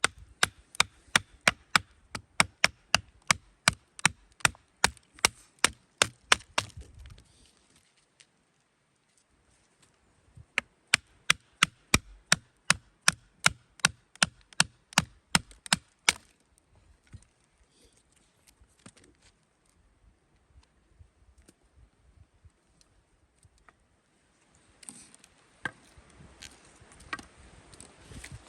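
Wood being chopped with rapid, evenly spaced strikes, about three a second, in two runs separated by a pause of a few seconds. Lighter scattered knocks follow near the end.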